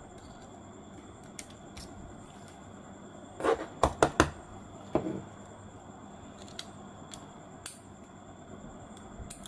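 Light metallic clicks and taps of fine tweezers working small parts out of a spinning reel's anti-reverse clutch area, a quick run of several clicks about three and a half seconds in, then single ticks spaced out over the rest.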